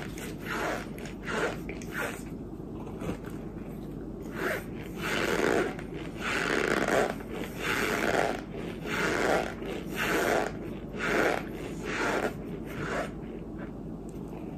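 Close-miked chewing of a mouthful of chalky white clay and powder, a crunchy, rasping bite about once a second, quieter near the end.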